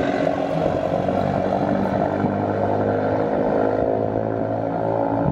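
Car engine and road noise heard inside the cabin while driving, a steady hum.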